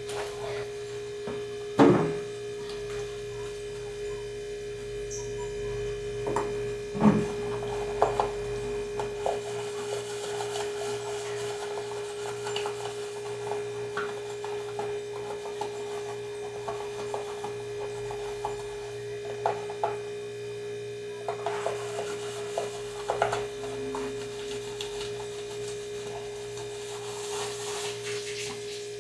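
Dishes being washed by hand at a kitchen sink: scattered clinks and knocks of crockery and plastic containers, and a sponge scrubbing, the sharpest knocks about two seconds and seven seconds in. A steady electrical hum on one tone sits underneath.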